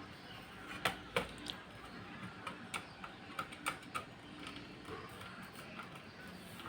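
Irregular light clicks and taps of small hard parts being handled as a fitting is taken off a desktop PC's DVD drive.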